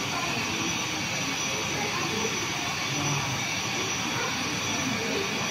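Steady hall ambience around a model railway and airport layout: a constant airy hiss with a low murmur of distant visitor chatter underneath.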